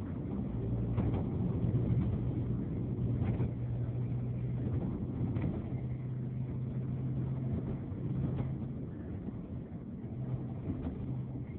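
Engine and road noise heard from inside a moving vehicle: a steady low engine hum over tyre rumble, with a few faint knocks.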